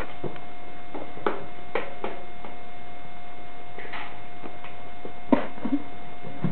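Steady electrical hum and hiss in the recording, with a few soft clicks and a brief rustle.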